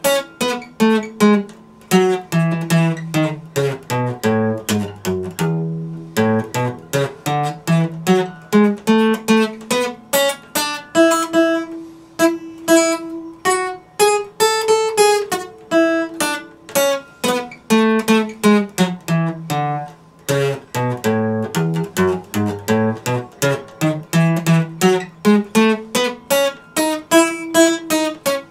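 Epiphone acoustic guitar played solo: a steady stream of plucked notes over a bass line that steps up and down.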